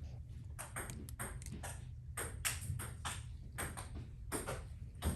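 Small metal tools clicking and tapping against the parts of an iPhone 13 Pro Max camera module as it is taken apart: a dozen or so short, sharp, irregular ticks over a steady low hum.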